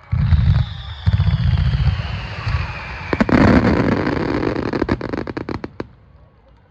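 Fireworks going off: deep booms of bursting shells, a whistle sliding slowly down in pitch, then a loud crackle and a quick run of sharp cracks that fades out near the end.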